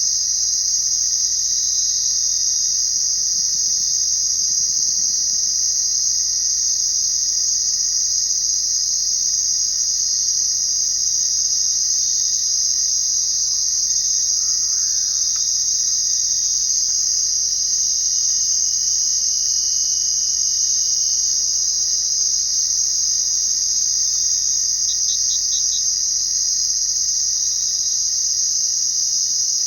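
A chorus of crickets chirping, a steady high-pitched trill with no breaks. Near the end a short run of four quick chirps stands out briefly.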